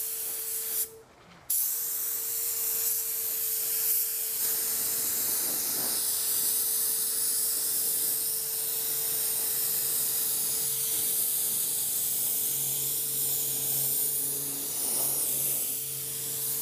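YT160 (R500) low-volume, low-pressure gravity-feed spray gun hissing as it sprays clear coat, with a thin steady whistle in the airflow. The air cuts off briefly about a second in as the trigger is released, then the gun sprays steadily again.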